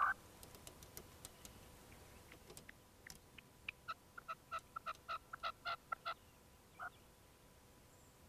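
Red-legged partridge calling: a short note at the start, then from about three and a half seconds in a quick run of about a dozen rhythmic notes, some five a second, and one last note near the end.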